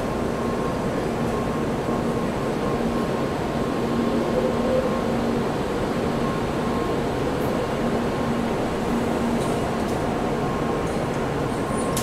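A Tokaido Shinkansen train pulling out of the platform: a steady rumble with a faint electric hum that comes and goes.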